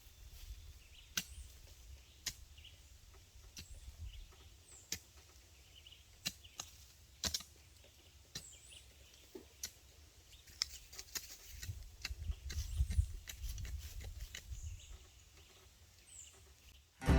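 Sharp chopping strikes from a hand tool in field work, roughly one a second, with faint bird chirps and a low wind rumble on the microphone around the middle.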